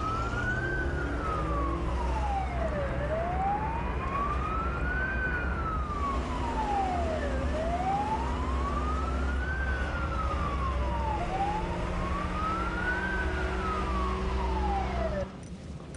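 Fire engine's wailing siren, rising and falling slowly about every four seconds, over the low rumble of the truck's engine. It cuts off suddenly near the end.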